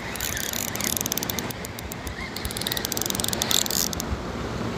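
Spinning fishing reel being cranked quickly to bring in a hooked fish, a rapid run of fine mechanical ticks that stops a little before the end.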